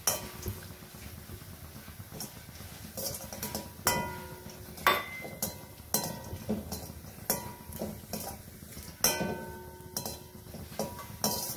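A spoon stirring cashews and almonds roasting in ghee in a stainless-steel kadai: irregular sharp clinks and scrapes of metal on the steel pan, about one a second, some leaving a brief ring.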